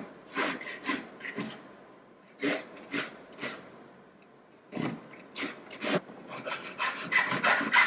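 Flat hand file scraping the edge of a small cut sheet-metal disc, cleaning up its sawn edge. Separate strokes come in short groups with pauses between, then pick up near the end to about three or four strokes a second.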